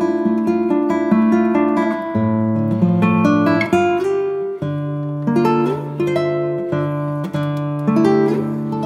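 Background music: an acoustic guitar playing plucked notes, with low bass notes held underneath.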